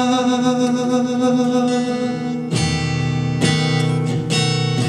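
Acoustic guitar accompaniment of a live song cover: a held sung note carries over the chords in the first half, then the guitar plays three strong strummed chords a little under a second apart.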